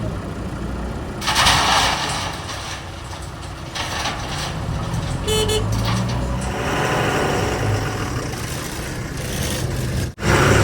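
Diesel engines of backhoe loaders and trucks running steadily, with a brief loud burst of noise early on and a short horn toot about five seconds in.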